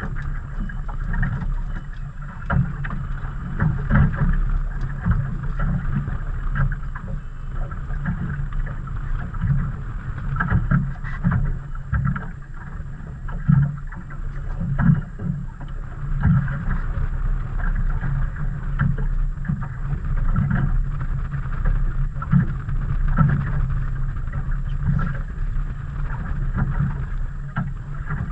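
Wind rushing over the microphone and water slapping against the hull of a small fishing boat, with frequent irregular low thumps.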